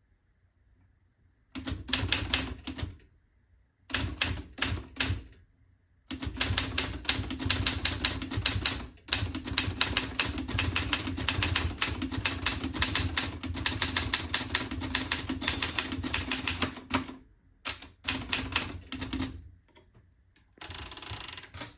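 Keys of a 1958 Adler Universal manual typewriter striking as it is typed on. A couple of short runs of keystrokes lead into about ten seconds of steady, rapid typing, then a few more strokes.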